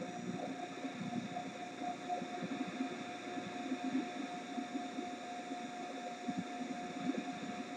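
Rogers Majestic 8059A tube console stereo's FM tuner being tuned, giving out steady static hiss with a constant whistle tone through it. The reception is poor, a sign that the FM section is still not working right.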